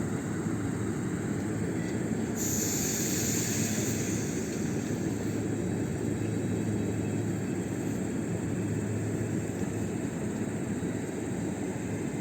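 EG2Tv 'Ivolga' electric train running with a steady low rumble and hum. About two seconds in, a sudden high hiss starts and dies away over the next two to three seconds.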